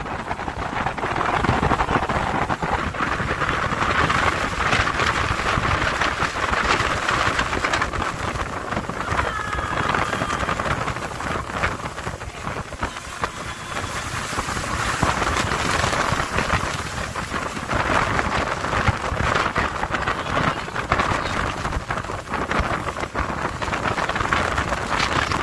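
Wind buffeting the microphone on a small open speedboat running fast across choppy water, with water rushing and splashing along the hull in a dense, steady hiss.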